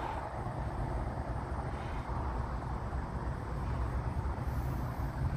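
Steady outdoor background rumble with a low, fluttering undertone, and no distinct event standing out.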